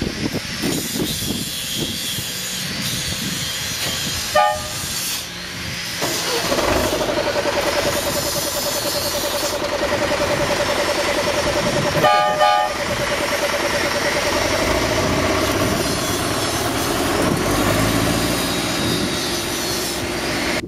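Hunslet narrow-gauge diesel locomotive running, its engine getting louder about six seconds in as it pulls away under power. Two short horn toots, about four and twelve seconds in.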